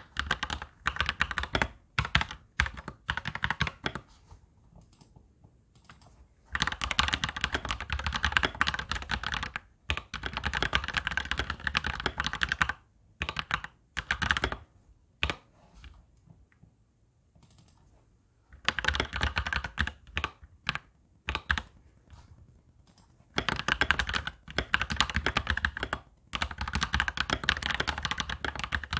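Touch-typing on a Royal Kludge mechanical keyboard: fast runs of key clicks a few seconds long, broken by short pauses.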